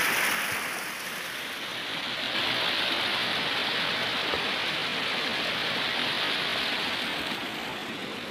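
Steady rush of the Kunhar River's fast water running over stones, as an even hiss without pauses. It dips a little about a second in and swells again a second or so later.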